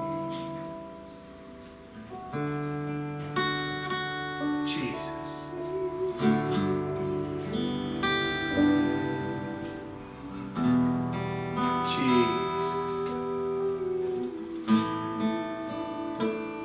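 Acoustic guitar strumming slow chords as the accompaniment to a worship song, with a voice singing the word "Jesus" about five seconds in.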